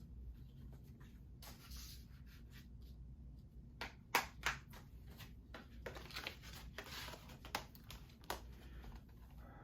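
Hands handling a plastic Blu-ray case and its discs: faint rustling and scattered plastic clicks, with a couple of sharper clicks about four seconds in and a busier patch of handling after that.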